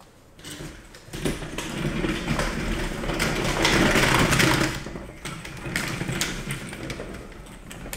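3D-printed mecanum wheels with free-spinning rollers rolling across a wooden parquet floor as the base is pushed by hand: a whirring rattle that starts about a second in, is loudest around the middle, then eases off.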